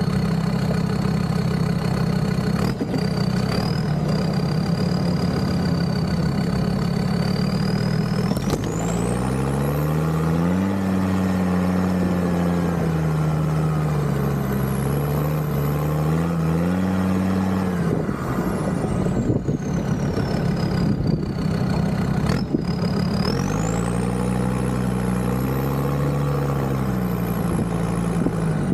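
Land Rover Discovery 2 Td5 five-cylinder turbodiesel engine running under way. Engine speed holds steady for the first eight seconds, then rises and falls, settles, and rises and falls again near the end. A high whine climbs and falls along with it.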